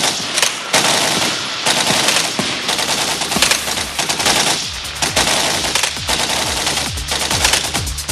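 Rapid machine-gun-like rattle of dense noise, joined about four and a half seconds in by electronic kick drums that fall in pitch and a steady bass note: the start of a techno track.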